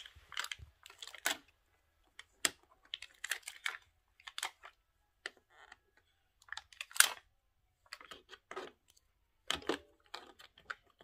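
Small plastic toy pieces clicking and clattering as they are handled and set down on a plastic playset, in irregular taps with short gaps between them.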